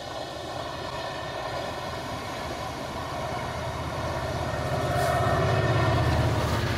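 A passenger train passing close by, its coaches rumbling over the rails, then the Class 67 diesel locomotive pushing from the rear goes by with its two-stroke V12 engine working. The engine sound grows louder and is loudest near the end as the locomotive passes.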